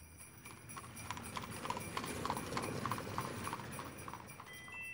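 Horse hoofbeats clip-clopping at an even walking pace, about three or four strikes a second, swelling in and then easing off. A high ringing chime comes in near the end.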